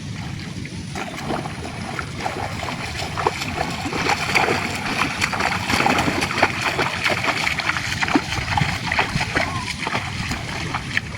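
Water splashing and sloshing: a dense run of many short splashes that starts about a second in.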